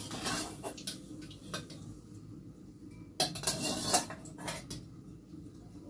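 Steel pots and cooking utensils clinking and clattering on a gas stove as food is handled, with a louder run of clatter about three seconds in.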